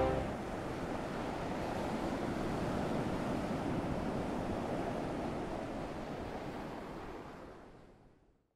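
Steady rush of wind and waves on open water, fading away near the end.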